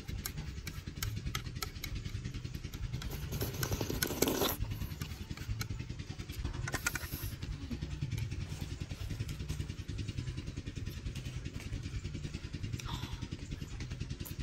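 Slurping and chewing of instant noodles and soup eaten with chopsticks, with a few small clicks early on and louder slurps about four seconds in and near seven seconds. Under it runs a steady low pulsing rumble, like a motor running at idle.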